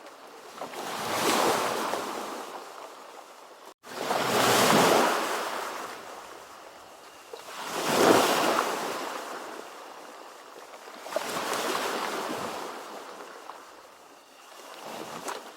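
Ocean surf: waves break and wash in one after another, each swelling to a hiss and fading, four in all about every three and a half seconds, with the next one rising near the end. The sound cuts out for an instant just before the second wave.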